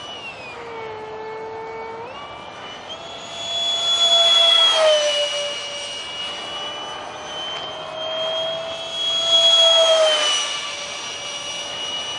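Whine of a Detrum 70 mm electric ducted fan on a foam RC jet in flight. The pitch drops as the throttle comes back about half a second in and rises again about two seconds in. It then passes close twice, growing loud and falling in pitch as it goes by each time.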